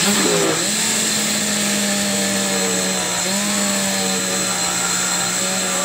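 Electric countertop blender motor running steadily as it blends oregano leaves in coconut milk into a thick liquid. The motor's pitch drops a little about three seconds in, then picks back up near the end.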